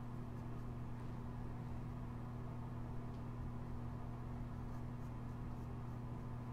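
Steady low hum with an even background hiss, and a few faint clicks.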